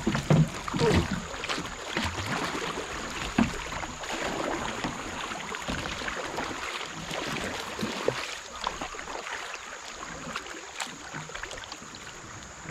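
Water splashing and rushing around a kayak as a hooked smallmouth bass is played and reeled in, with a few sharp knocks in the first few seconds.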